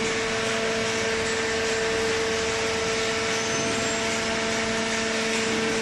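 Hydraulic carton baler's power unit running steadily: a constant hum with a steady tone over an even hiss.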